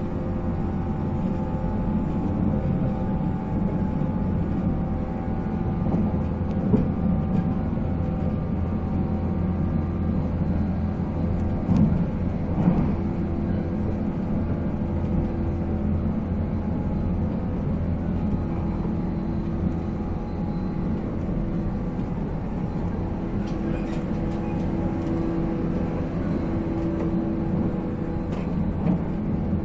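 485-series electric train running at steady speed: its MT54 traction motors give a steady whine of several tones over the rumble of wheels on rail, with a couple of knocks about twelve seconds in.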